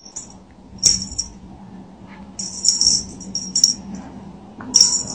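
A cat toy jingling in short, high rattling bursts, about five of them, the sharpest about a second in and near the end, over a faint steady hum.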